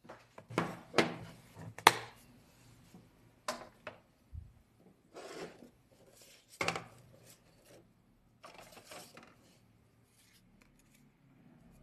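A plastic gouache paint case and small paint jars handled on a tabletop: irregular clacks and scrapes, several in quick succession in the first two seconds, then more spaced out, with a rub near the end.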